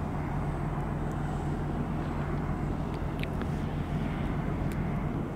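Boeing 747-8F freighter's GEnx turbofan engines running at low taxi power as the jet rolls past, a steady low rumble.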